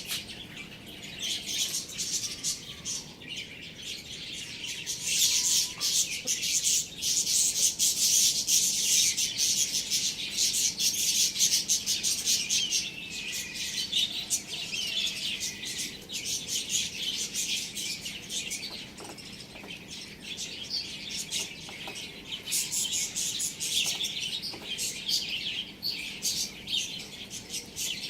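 Many small birds chirping and chattering together in a dense, continuous high-pitched twitter, busiest and loudest from about five to thirteen seconds in.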